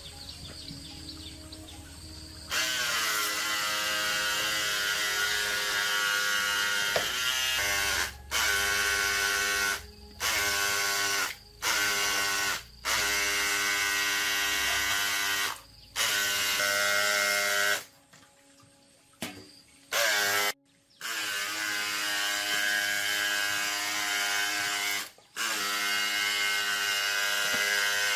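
A small electric motor, like a handheld power tool, whining steadily in repeated bursts. It stops and starts about ten times, with a slight dip in pitch as some bursts begin.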